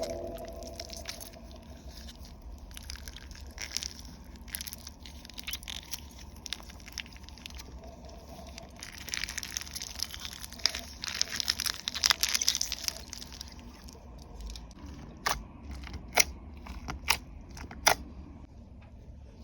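Slime being squished and stretched by hand, giving sticky clicks and crackling pops. The crackling thickens in the middle, and a few sharp pops come near the end.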